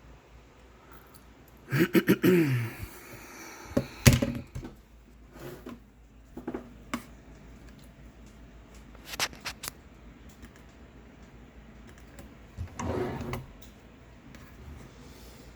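Scattered clicks and knocks a few seconds apart, with a short falling-pitched sound about two seconds in.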